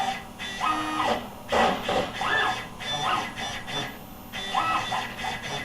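Stepper motors of a CNC plasma table jogging the machine in a series of short moves, about five in all. Each move is a whine that rises in pitch as the motor speeds up, holds, and falls away as it stops.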